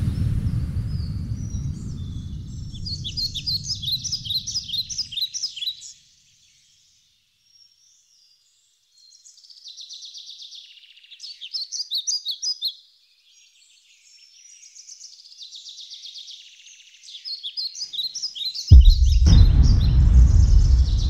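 Songbirds chirping and singing in short bouts, broken by a few seconds of silence, while a low noise fades out over the first five seconds. Near the end a sudden, very loud, deep noise breaks in and carries on.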